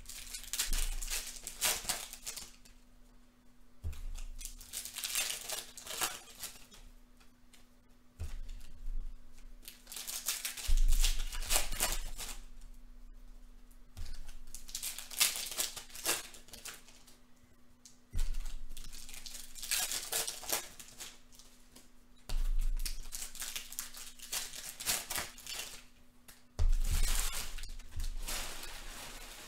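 Aficionado trading-card pack wrappers being torn open and crinkled by hand, one after another, roughly every four seconds. Each pack starts with a light thump on the table.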